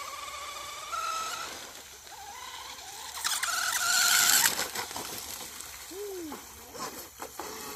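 TP Power brushless motor of a radio-controlled outrigger speed boat whining at speed, its pitch rising over the first second or so. About three seconds in, a loud hiss with a high whine over it rises for about a second, then falls away.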